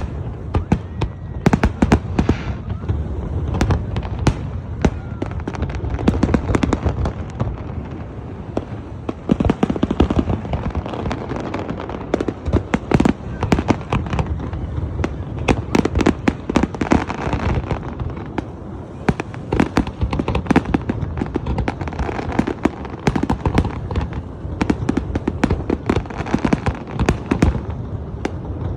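Fireworks display: a dense, unbroken run of bangs and crackling as many shells burst in quick succession.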